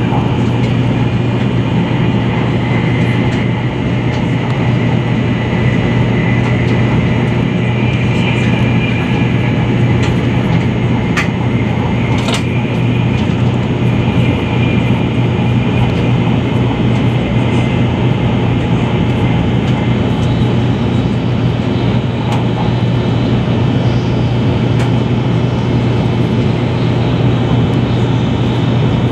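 Cabin running noise of a Taiwan High Speed Rail 700T train at speed: a steady drone with a strong low hum. Two faint clicks come about eleven and twelve seconds in.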